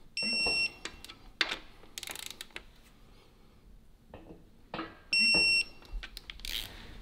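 Digital torque wrench beeping twice, a short steady high-pitched tone each time, about five seconds apart, as a bolt reaches the set torque. Clicks and knocks of tool work come between the beeps.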